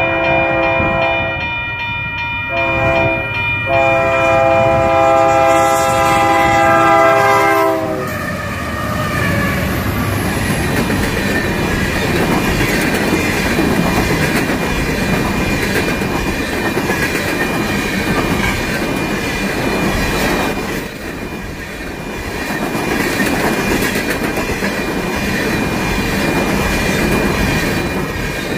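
Union Pacific diesel locomotive's air horn sounding for the grade crossing, with two brief breaks and then one long blast whose pitch drops slightly as the locomotive passes, cutting off about eight seconds in. After it, the steady rumble and clickety-clack of coal gondolas rolling past.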